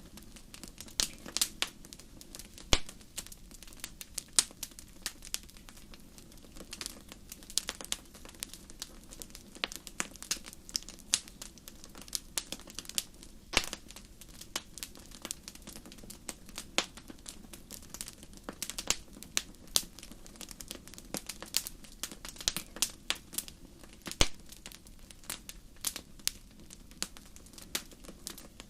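Wood fire crackling in a fireplace: irregular sharp snaps and pops, a few louder than the rest, over a faint steady low rumble of the flames.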